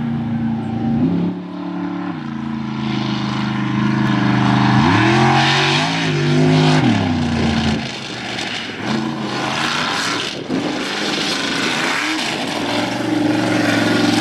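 Lifted mud-bog trucks' engines revving hard, the pitch climbing and dropping with the throttle several times, with a sharp rise about five seconds in that falls away near seven seconds. Underneath is a rushing hiss of mud and water being thrown by the tires.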